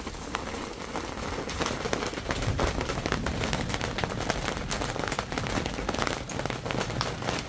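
Steady rain falling, a dense patter of many small drop hits that gets a little louder after the first second or two.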